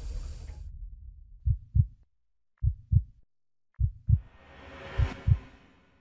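Heartbeat sound effect: four low lub-dub double thumps about 1.2 s apart, starting about one and a half seconds in. A whoosh swells up under the last two beats and fades out.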